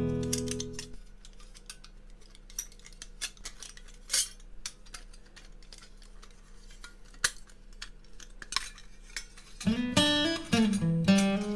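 Acoustic guitar background music stops about a second in, leaving a few scattered light metal clinks of camp cookware being handled; the guitar music comes back near the end.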